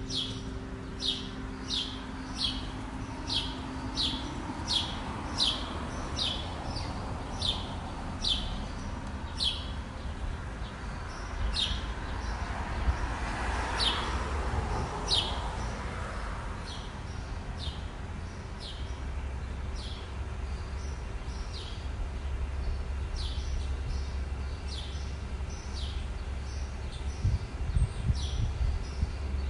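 A small bird chirping repeatedly: short, high chips that each drop in pitch, about one and a half a second for the first ten seconds, then more scattered. Underneath runs a low steady rumble, with a swell of broader noise near the middle.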